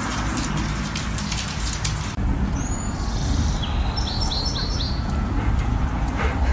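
Small birds chirping outdoors, with a quick run of four short chirps about halfway through, over a steady low rumble. In the first two seconds, before the bird calls begin, there is a crackly ticking noise.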